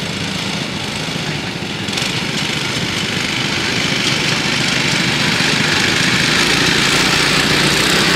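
Small engine of a 7¼ inch gauge miniature diesel-outline locomotive running steadily as it hauls its passenger train, getting louder as it comes closer. A broader hiss joins about two seconds in.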